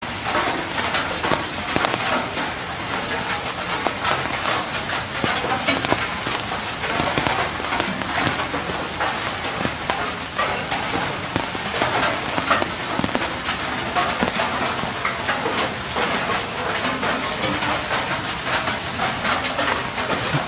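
Steady rain falling, with a dense patter of drops hitting hard surfaces.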